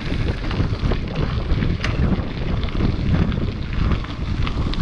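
Wind buffeting the microphone of a mountain bike riding along a gravel track, with tyres crunching over loose stones and the bike rattling in many small ticks.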